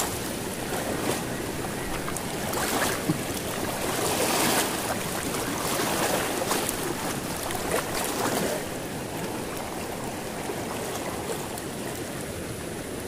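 Shallow river water rushing and splashing over rocks, swelling louder for moments a few times.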